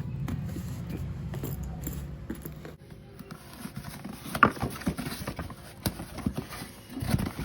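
A shipping package being opened by hand: a rough rustling and scraping for the first couple of seconds, then scattered taps and knocks as the package is handled.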